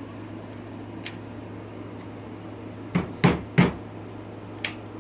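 Three quick, sharp knocks about three seconds in, with lighter clicks before and after, from the model locomotive and its cars on the track, over a steady low electrical hum.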